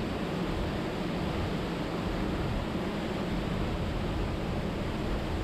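Steady rushing noise with no distinct knocks or other events.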